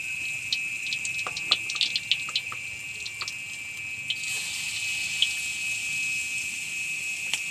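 Sweet-corn fritters frying in hot oil in a wok: a steady sizzle with scattered crackling pops. The hiss grows louder about four seconds in, as another spoonful of corn batter goes into the oil.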